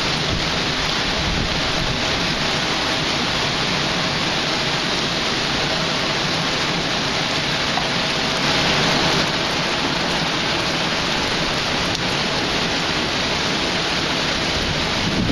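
Heavy hurricane rain falling steadily as an even hiss, swelling slightly about eight and a half seconds in.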